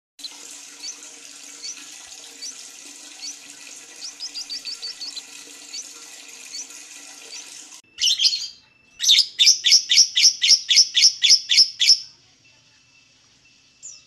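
A steady rushing noise with small bird chirps over it, then a Fischer's lovebird calling: a short shrill call about eight seconds in, followed by a rapid run of loud, sharp calls at about four or five a second for some three seconds.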